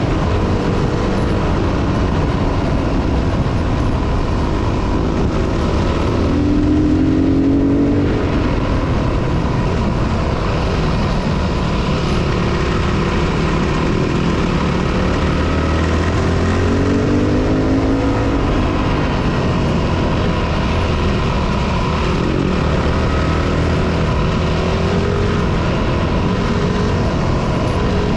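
Trail dirt bike engine under way on a gravel forest track, its pitch rising and falling several times as the rider accelerates and eases off, over a steady rush of wind and road noise.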